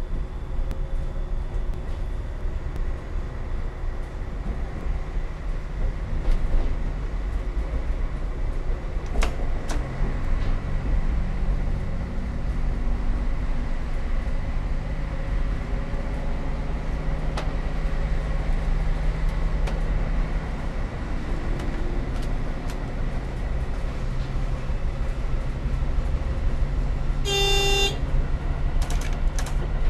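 Y-train diesel railcar running, heard from the driver's cab: a steady low engine hum whose pitch shifts, with occasional clicks and rattles. One short horn blast sounds near the end.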